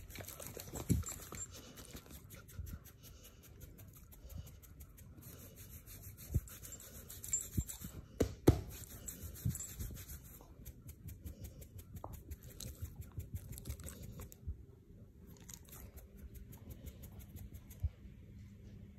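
A hand rubbing and scratching a pit bull's short-haired chest and belly, a soft run of quick scratchy strokes. There are a few louder bumps around the middle.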